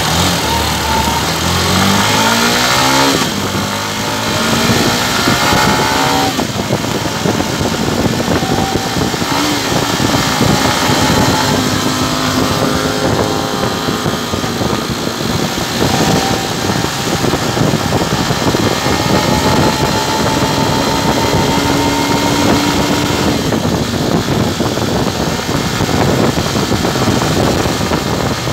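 Motorcycle engine pulling away from a standstill, rising in pitch through the first gears with shifts about three and six seconds in, then cruising steadily under a constant rush of passing air.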